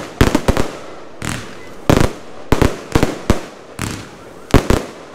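Aerial firework shells bursting overhead: a rapid, irregular series of loud, sharp bangs, some coming in quick clusters of two or three.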